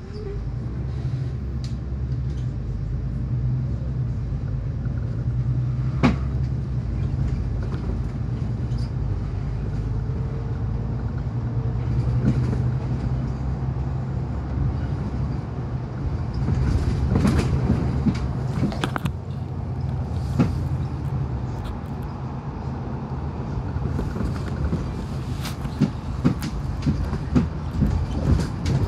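City bus heard from inside the passenger cabin while driving: a steady low engine drone, with scattered knocks and rattles that come more often in the second half.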